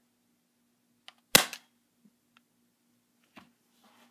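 A BB gun fires one sharp, loud shot about a second in, just after a faint click, probably with a sewing needle loaded in place of a BB; a few faint clicks follow.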